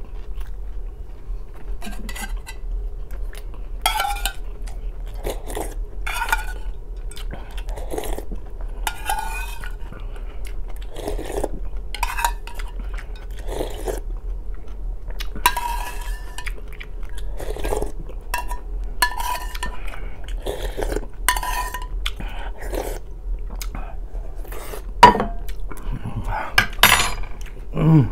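Metal spoon scraping and clinking against a metal bowl as the last of the borscht is spooned up: a string of short scrapes and clinks every second or two, some with a brief metallic ring, the loudest two near the end.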